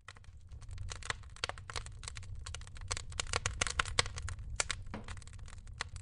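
Wood fire crackling in a wood stove: rapid, irregular snaps and pops over a low steady rumble.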